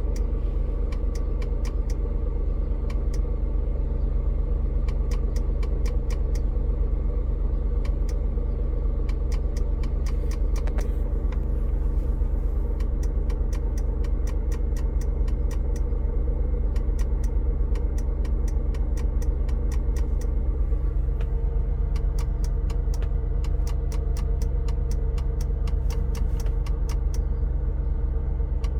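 2002 Land Rover Discovery Series II idling with a sharp clicking repeating a few times a second over the engine, pausing briefly before the middle. The clicking seems to come from under the dash fusebox, keeps time with the blinking shifter lights, and occurs only at the first cold start of the morning, going away after a few minutes.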